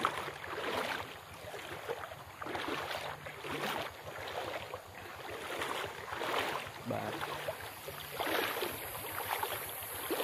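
Floodwater sloshing and splashing in irregular surges, with wind buffeting the microphone.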